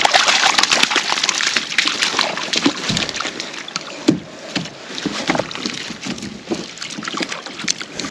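Water splashing and sloshing beside a kayak, with many irregular small knocks and clicks as fishing gear and the net are handled.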